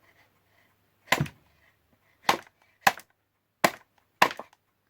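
Five sharp knocks, irregularly spaced, as a stuck part inside a Roberts R717 radio is forced and knocked to free it.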